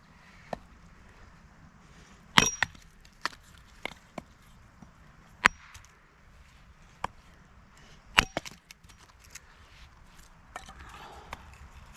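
Firewood being split or chopped: a handful of sharp wooden knocks and cracks at irregular intervals, the loudest about two and a half and eight seconds in.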